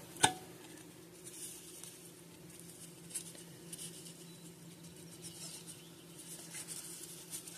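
Baseball cards being slid one behind another in the hands: faint paper-card rustling and light ticks, with one sharper click just after the start. A steady low hum runs underneath.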